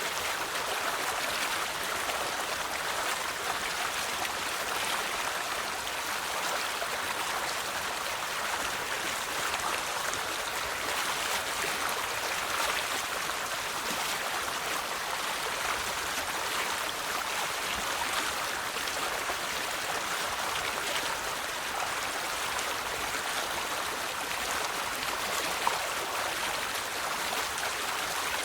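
River water flowing over stones: a steady, even babble and rush with no breaks.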